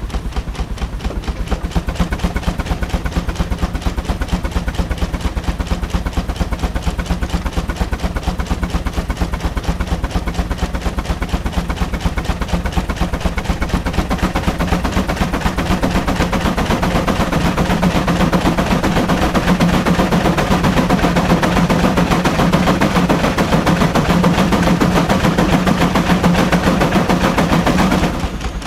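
Steam traction engine working on the belt under load: rapid, sharp exhaust chuffs in a fast even rhythm over a steady low hum. The chuffing grows louder about halfway through and drops off suddenly just before the end.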